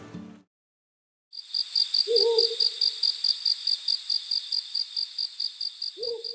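Night-time ambience: a cricket chirping in a fast, even pulse, joined twice by a short low hoot, about two seconds in and again near the end.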